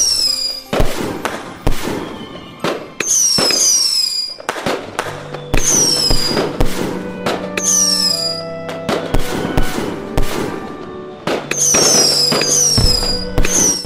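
Fireworks bangs and crackles with groups of short falling whistles, mixed over music with steady held notes.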